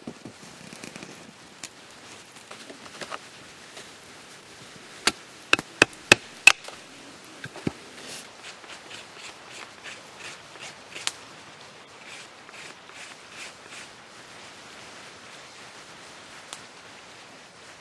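Hard knocks of a stone tool striking: five loud, sharp strikes within about a second and a half, about five seconds in, then a run of lighter, quicker taps.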